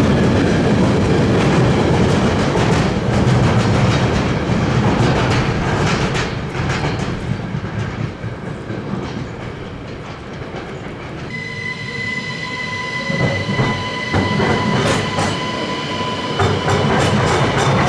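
A train running through a station with a heavy rumble that eases about halfway. About two-thirds in a steady high-pitched whine sets in, and the wheels clatter over rail joints and points as it builds up again toward the end.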